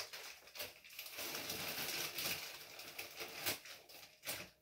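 Faint rustling of a plastic freezer bag and a few light knocks and clicks as it is handled and put into a freezer.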